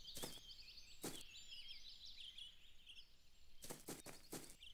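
Faint cartoon garden ambience of small birds chirping and twittering, with a few light taps about a second in and a quick run of them near the end.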